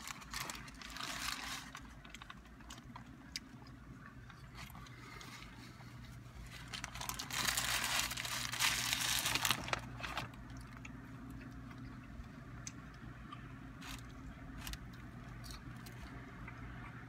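Chewing and the crinkle of paper taco wrappers being handled, with scattered small clicks and a louder stretch of wrapper rustling from about seven to ten seconds in. A steady low hum runs underneath.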